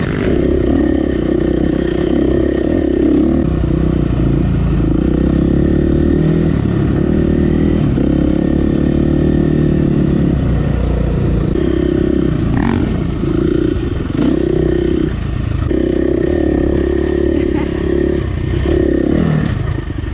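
KTM EXC four-stroke single-cylinder dirt bike engine running at trail speed, the throttle rolled off and back on several times in the second half, with the revs falling away near the end. Short knocks and rattles from the bike running over the rough dirt trail are heard along with it.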